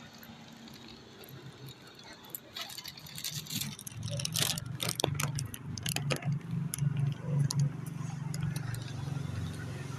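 Close handling noise on a phone microphone: quick rustles and clicks as a cat is held against it, starting about two and a half seconds in. A steady low hum joins from about four seconds in.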